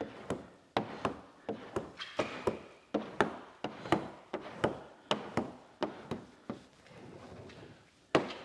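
Squeegee worked in quick, overlapping strokes over wet paint protection film on a truck hood, pushing out the slip solution: a rapid series of sharp clicks and short swishes, about two to three a second.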